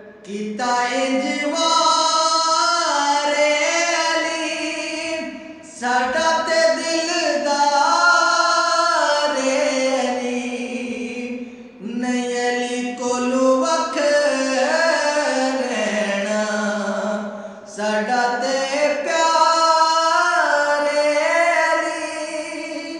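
A man singing a naat, a devotional Islamic poem, solo, in long drawn-out phrases that slide in pitch. There is a short break about every six seconds.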